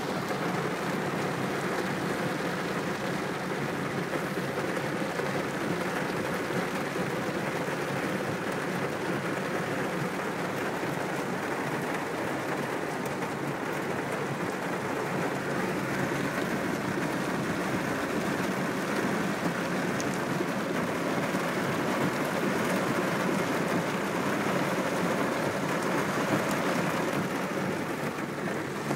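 Heavy thunderstorm rain pouring down in a steady, unbroken hiss.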